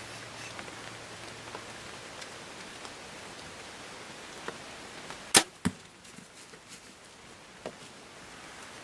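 Compound bow shot at a whitetail doe: a single sharp crack of the bow firing about five seconds in, followed about a quarter second later by a second sharp smack of the arrow striking the deer at 19 yards. A low steady hiss lies underneath.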